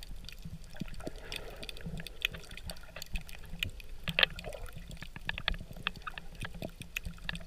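Water around a submerged camera heard underwater: a muffled low rumble with many scattered sharp clicks and crackles.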